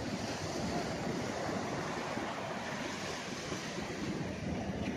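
Ocean surf breaking and washing onto a flat sandy beach, a steady rush of noise, with some wind.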